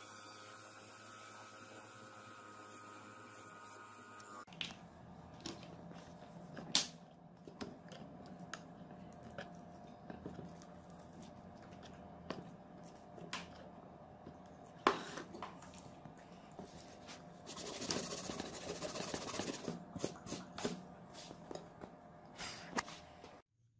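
A steady electrical hum with several tones for about the first four and a half seconds, then close-up handling: scattered light taps and clicks and the scraping of a small steel blade and fingertips over the steel billhook blade, with a longer stretch of scraping about eighteen seconds in.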